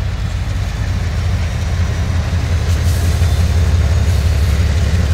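Deep, steady rumble of a passing work train hauling stone cars, slowly growing louder.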